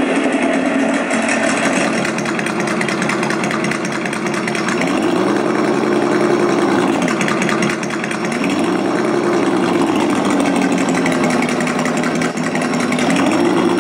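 Sense Innovations ESS-Dual engine sound simulator playing a throaty synthesized truck engine through its speaker at loud volume: idling, revved three times from the throttle, about five, eight and thirteen seconds in, each rev rising, holding briefly and falling back to idle.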